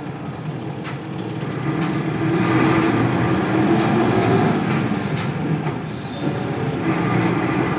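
Isuzu Cubic bus's 8PE1 V8 diesel engine running under way. It grows louder about two seconds in, eases briefly near six seconds, then pulls again.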